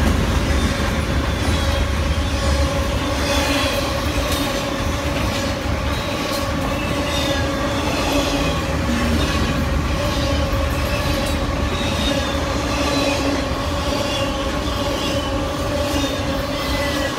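Canadian Pacific freight train cars rolling past. The wheels click over the rail joints over a low rumble, with a steady high wheel squeal.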